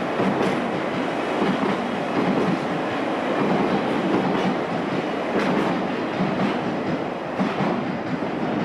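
London Underground 1983 Tube Stock train running along the track, its wheels clicking over rail joints roughly once a second above a steady rumble.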